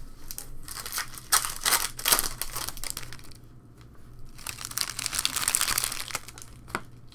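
Trading card pack wrapper being torn open and crinkled by hand, in two stretches of rustling, with a short click near the end.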